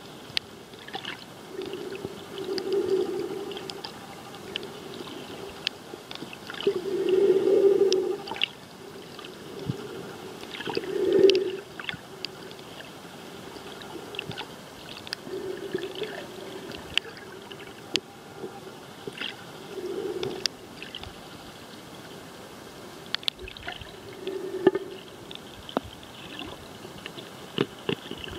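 Muffled underwater ambience picked up by a submerged camera: a steady hiss with many scattered sharp clicks, and a low burbling swell that comes back every four to five seconds.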